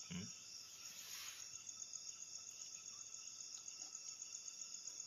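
Crickets chirping steadily at night, a continuous high-pitched pulsing trill.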